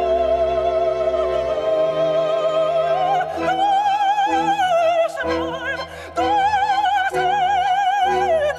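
Operatic soprano singing long, held high notes with wide vibrato over a low sustained bass accompaniment, pausing briefly about six seconds in.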